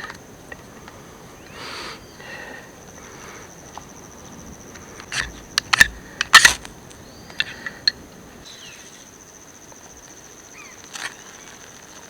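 Steady, high-pitched insect drone, typical of crickets or cicadas in the forest. About five seconds in comes a short run of sharp knocks and snaps, which are the loudest sounds.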